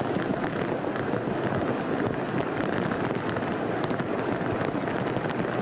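Floodwater gushing up out of a street drain in a flooded road, a steady dense rush of water with faint scattered crackles, in heavy rain.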